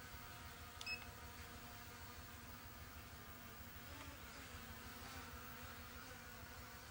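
E88s mini quadcopter's brushless motors and propellers buzzing steadily while it flies, with a short high beep about a second in.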